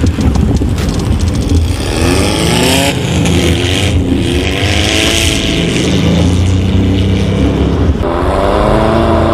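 Air-cooled Volkswagen Baja Bug flat-four engine revving under off-road driving, its pitch climbing several times as it accelerates, over a low rumble and a steady rushing noise.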